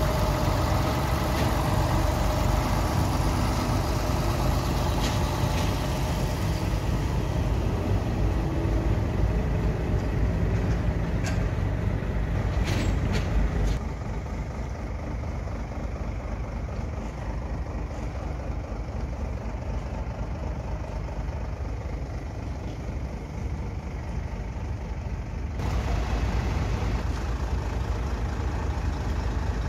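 Diesel engine of a Scania truck running as it pulls away, towing a trailer loaded with a folded funfair ride. The engine is loud at first, drops off about halfway through, and comes up again near the end.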